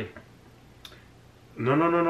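A quiet pause in the room with one faint short click about a second in, then a man's voice starting up near the end.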